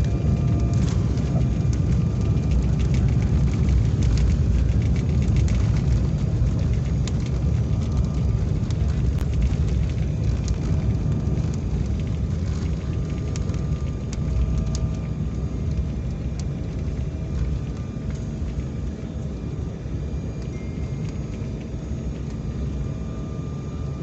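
Jet airliner's landing roll heard from inside the cabin: a loud low rumble of wheels and engines on the runway, easing gradually as the plane slows, with scattered rattles and clicks of the cabin.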